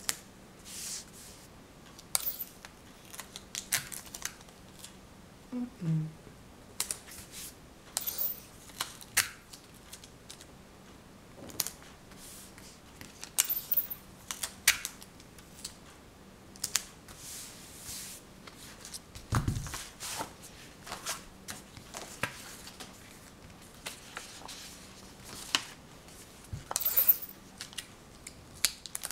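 Irregular small clicks, taps and brief rustles of objects being handled close up, with a dull low thump about two-thirds of the way through.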